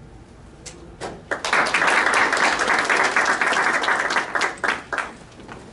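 Audience applauding. It starts about a second in, holds for roughly three and a half seconds and dies away with a few last claps.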